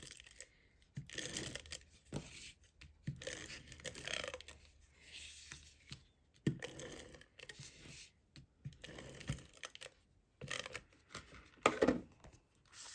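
Cardstock and paper being handled and pressed into place, a series of short dry rustling, scraping strokes with a sharper tap near the end.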